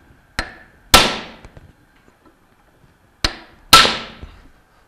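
A hammer striking a steel pipe that drives a new ball bearing down a Bell & Gossett Series 1510 pump shaft held in a vise. There are two pairs of blows, each a light tap followed by a hard strike, and each hard strike rings out briefly with a metallic clang. The bearing is being seated onto the shaft.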